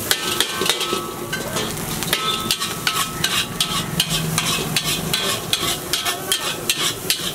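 Metal spatula scraping and clanking against a wok as rice is stir-fried, several strokes a second, over a steady sizzle from the hot pan.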